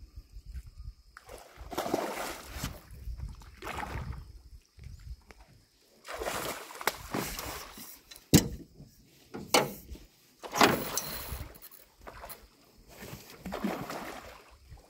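A hooked paco, a large river fish, splashing and thrashing at the surface in repeated bursts while being played on a rod, with a few sharp knocks around the middle.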